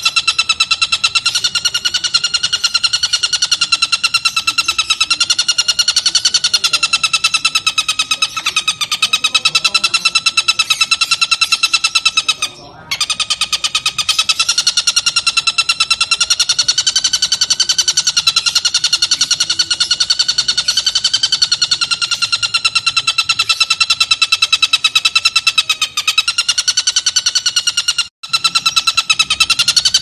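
Oriental dollarbird (tengkek buto) giving its long, rapid chattering call (ngekek panjang), kept up almost without a break. There are two short pauses, one about midway and one near the end.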